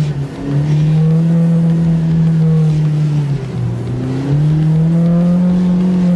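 Polaris RZR Pro R's 2.0-litre inline-four engine running hard through snow. Its pitch drops briefly just after the start and again around three and a half seconds in, then climbs back up.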